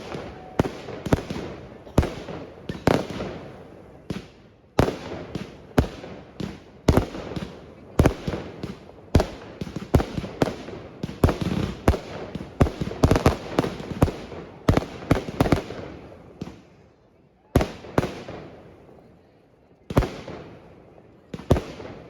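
Fireworks exploding: a rapid string of sharp bangs, often several in quick succession, each with an echoing tail, thinning out to a few single bangs after about sixteen seconds.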